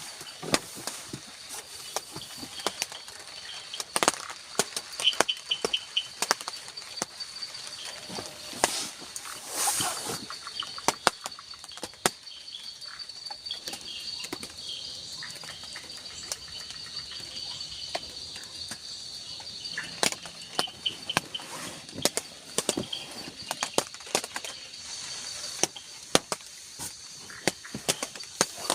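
Night forest ambience in light rain: a steady high insect drone, with short trilling insect calls now and then, under many irregular sharp taps of raindrops dripping on the shelter.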